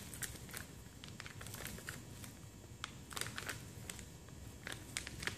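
Plastic pouch crinkling and crackling in gloved hands, in scattered light crackles that bunch up about three seconds in and again near the end.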